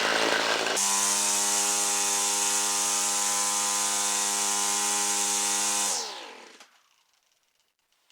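Homelite two-stroke string trimmer engine, its carburetor fitted with adjustable mixture needles, running unevenly for a moment and then settling into steady running. About six seconds in it is shut off and winds down, the pitch falling until it stops.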